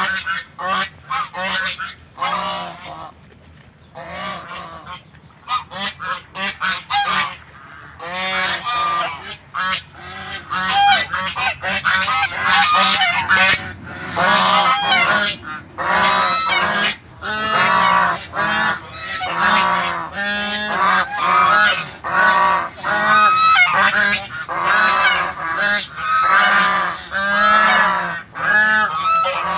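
A flock of domestic geese honking, many overlapping calls. The calls thin out a few seconds in, then build into almost continuous honking.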